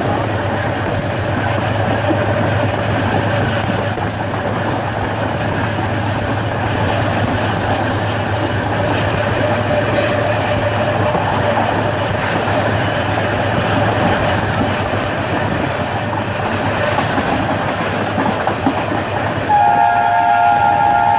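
Running train: steady rumble and wheel-on-rail clatter of a moving train. Near the end a diesel locomotive's multi-tone horn starts sounding, a chord of several steady notes.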